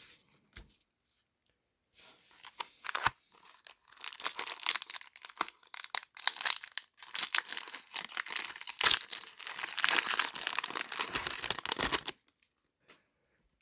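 A trading-card pack wrapper being torn open and crinkled by hand, a dense run of crackling and tearing that starts about two seconds in and stops about two seconds before the end, with a few separate crinkles before it.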